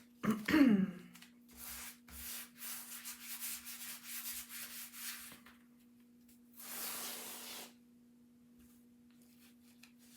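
Chalk Couture adhesive transfer being peeled off a fuzzing cloth, making a ripping sound. There is one long stretch of ripping, then a shorter one about seven seconds in. A brief voice sound comes right at the start.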